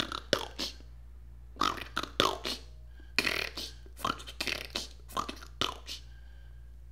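A person's voice in short, broken bursts without words, with sharp clicks between them, over a low steady hum.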